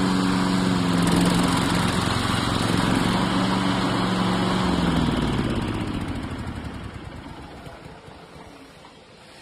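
Engine of a 32-inch remote-controlled lawn mower running steadily, then dropping in pitch and fading away over the last few seconds.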